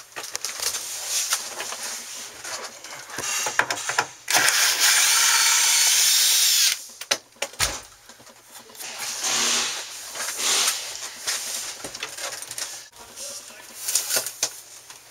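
Cordless screw gun running once for about two and a half seconds, backing out a screw that holds the air conditioner in. Scattered clicks and knocks of handling come before and after it.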